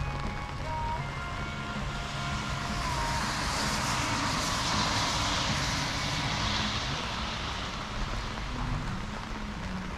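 A motor vehicle passing by: its hiss swells up, peaks about halfway through and fades away again.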